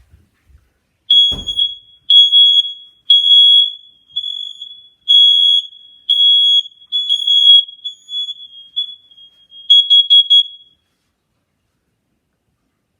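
Smoke alarm sounding in test mode after its test button is pressed: a loud, shrill single-pitched beep repeated about once a second, starting about a second in and stopping near the end.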